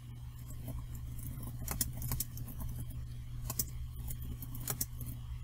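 Computer keyboard being typed on: irregular key clicks over a steady low hum.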